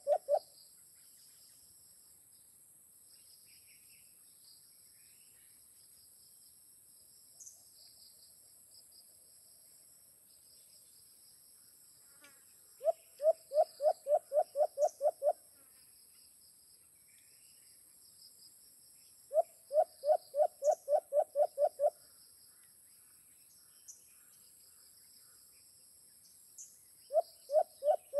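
White-eared brown dove calling: a run of about ten quick, even, low hooting notes, heard three times, the last starting near the end. A steady high insect hum runs underneath throughout.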